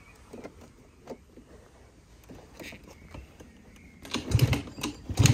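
Small clicks and rattles, then about four seconds in a small moped scooter engine starts: a couple of short bursts, then it keeps running steadily.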